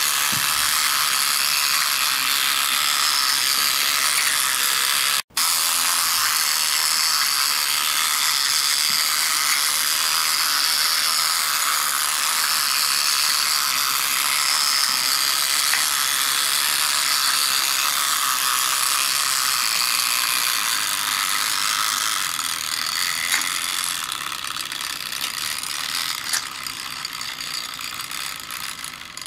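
Motorised magnetic fishing game's pond turntable running, its small motor and plastic gears giving a steady whirring, clicking rattle. It cuts out for a moment about five seconds in and grows quieter near the end.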